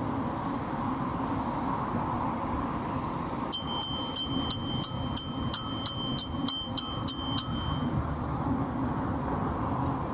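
Bicycle bell rung rapidly, about a dozen bright rings at roughly three a second, starting a few seconds in and stopping after about four seconds. Under it, the steady rush of wind and tyres from riding.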